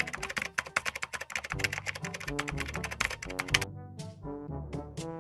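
Rapid keyboard-typing sound effect over background music with brass. The typing stops about three and a half seconds in, leaving the brass music.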